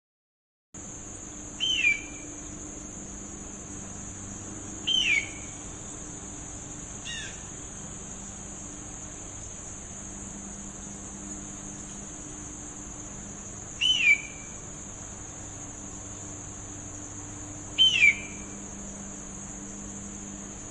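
A bird's short whistled call, each sweeping quickly downward in pitch, given five times at irregular intervals, over a steady high-pitched insect drone.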